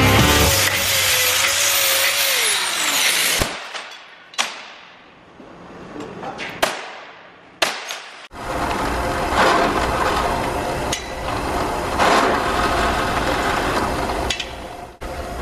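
Angle grinder cutting steel bar stock, a loud hiss whose whine falls as the grinder winds down about three seconds in. A few sharp clicks follow, then from about eight seconds in a steady drill-press motor runs.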